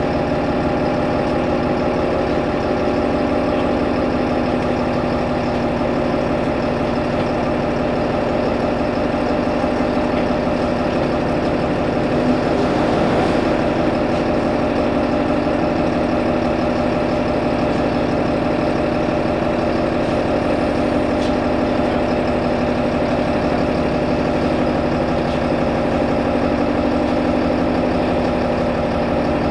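Solaris Urbino 15 city bus engine idling steadily at constant speed, heard from inside the passenger cabin.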